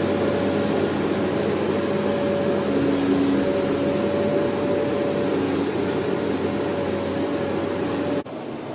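Multi-axle heavy-load transporter running as it crawls past: a steady engine drone with a constant whine over it and a lower hum that comes and goes. The sound drops abruptly to a quieter background near the end.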